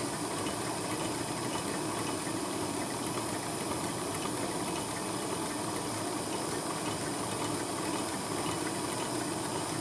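Steady hiss of a propane torch flame heating the hot end of a homemade gamma Stirling engine.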